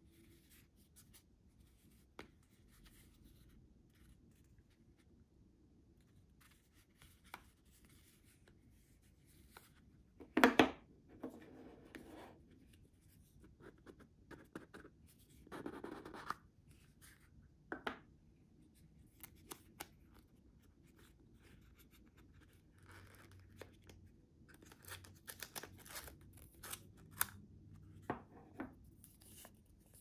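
Small cardboard keycap boxes being handled and opened: a paper sleeve slid off a rigid box, with light taps, scrapes and paper rustling. The loudest is a sharp knock followed by rustling about ten seconds in. Quick small clicks and paper handling come near the end as a folded paper leaflet is taken out.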